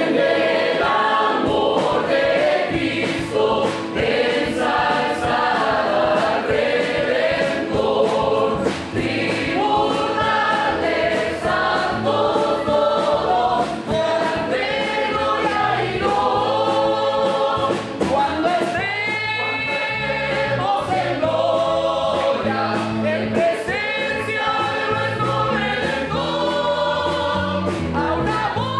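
Mixed choir of men's and women's voices singing a Spanish hymn together.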